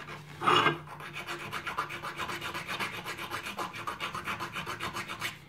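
Small hand file rasping back and forth on a revolver's metal front sight in quick, even strokes several times a second: the final filing that trims the replacement sight down to height.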